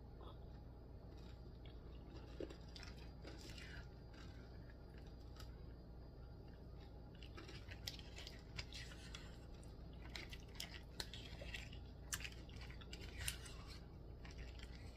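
Quiet eating sounds: a spoon scraping and clicking against a cup, with chewing and mouth noises. The small clicks and scrapes grow more frequent in the second half.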